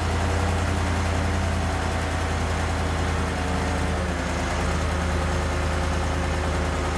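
Heavy engine idling steadily with a low, even hum.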